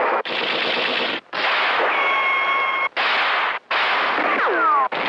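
Marx Sound of Power battery-powered toy rifles playing their recorded battle sounds: long bursts of rapid machine-gun fire cut by brief gaps, with a steady high whine in the middle and a falling whistle near the end.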